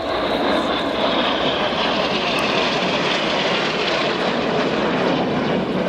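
Four BAE Hawk T1 jets, each with a single Rolls-Royce Turbomeca Adour turbofan, flying past together in formation: a loud steady jet rush with a high whine that slides slowly down in pitch as they pass.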